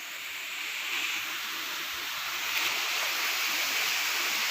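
Steady rush of flowing stream water, growing a little louder about two and a half seconds in.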